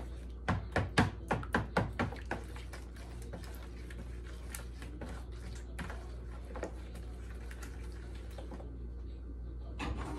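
Plastic spoon knocking and scraping against a plastic mixing bowl while a wet banana-and-egg mixture is stirred: a quick run of knocks, about four a second, in the first two seconds, then softer, scattered stirring clicks.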